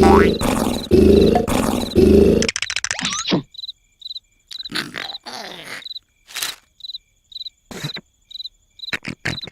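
Cartoon snoring: loud, drawn-out snores for the first two and a half seconds, then cricket chirping, about two chirps a second, with a few short cartoon sound effects in between.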